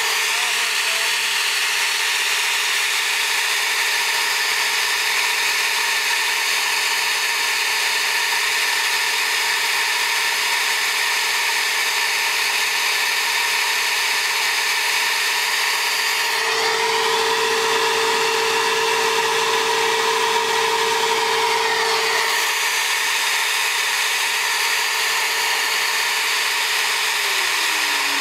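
Flow bench running, drawing air through a ported Studebaker cylinder head: a steady rushing hiss with a constant hum. Its tone shifts for about five seconds two-thirds of the way through, and near the end the motor's pitch begins to fall.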